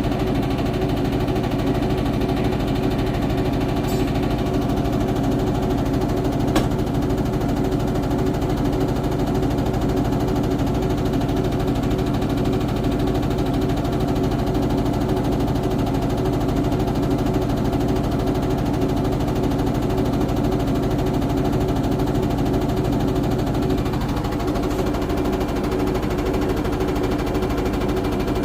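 IFB front-load washing machine running with a steady hum and a fast, continuous rattle, the abnormal noise that is the machine's sound problem. The low tone shifts slightly near the end.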